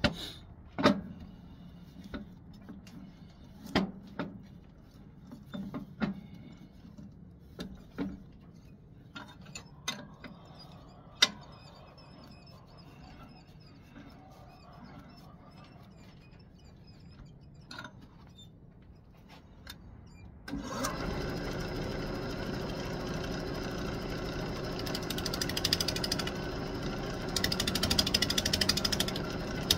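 Knocks and clicks as a walnut blank is handled and fitted on a wood lathe, then about twenty seconds in the lathe's electric motor starts suddenly and runs steadily with the blank spinning, getting louder near the end.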